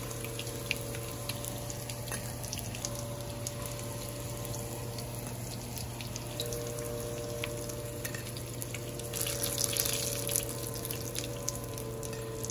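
Snakehead bites frying in hot oil in a pan: a steady sizzle with fine crackles, briefly louder about nine seconds in, over a steady low hum.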